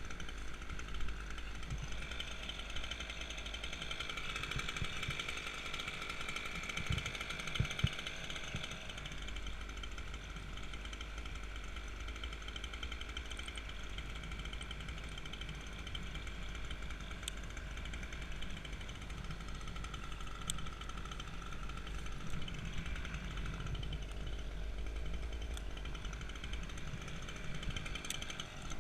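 Chainsaw engine running steadily, its whine a little louder for several seconds early on and again about two-thirds of the way through.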